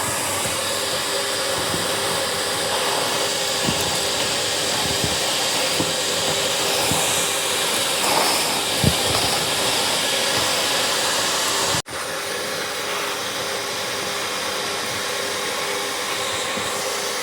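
1700 W Panther gutter vacuum running, a steady rush of air drawn up a long carbon pole with a faint motor whine, and a few short knocks as debris is sucked through. The sound drops out briefly about two-thirds of the way through.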